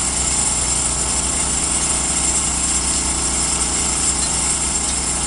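Heavy engine idling steadily, a constant hum that does not change.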